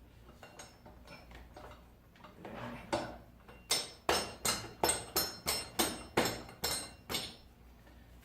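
Improvised hammering: a run of about a dozen sharp knocks, roughly three a second, starting about three seconds in, as the rear wheel axle is tapped through the wheel and spacers without a proper hammer.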